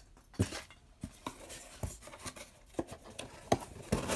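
Packing being handled in a cardboard box: a string of light, irregular taps and knocks with soft rustling in between.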